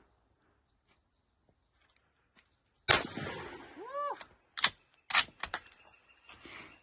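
A single rifle shot about three seconds in, its report trailing off, followed by several sharp clacks and cracks in quick succession over the next two and a half seconds.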